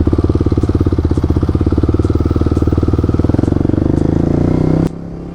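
Motorcycle engine running at low revs with a fast, even firing pulse, its pitch rising slightly near the end. It cuts off abruptly about five seconds in.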